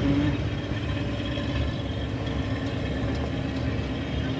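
Safari game-drive vehicle's engine running steadily as it drives, a low rumble with a faint steady hum.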